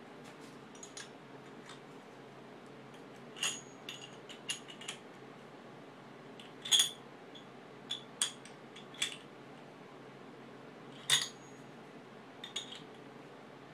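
Scattered metal clinks and clicks of a spark plug socket and spark plug being worked into the finned aluminium cylinder head of a Yamaha Towny moped engine by hand, the two loudest about seven and eleven seconds in.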